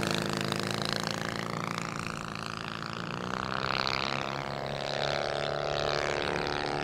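Piston engine of a large-scale propeller model aircraft running at low throttle as it taxis, a steady engine note that dips slightly about three seconds in.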